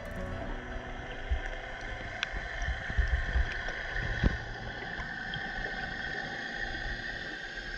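Muffled underwater sound picked up by a camera in its waterproof housing: low rumbling and scattered knocks, one sharp knock a little past halfway, over a steady high whine.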